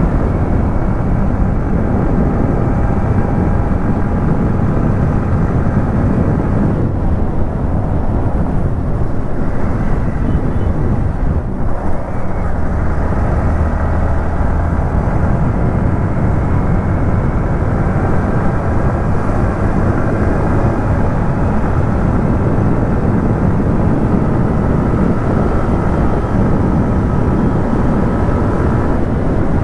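Yamaha MT-15's single-cylinder engine running steadily at road speed under a heavy rush of riding wind. There is a brief dip in the sound about twelve seconds in.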